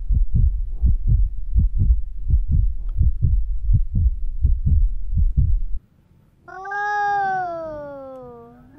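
Cartoon sound effects: a fast run of low thumps, about four a second, that stops suddenly about six seconds in, followed by a long pitched call that slowly falls in pitch, with a short second call starting at the end.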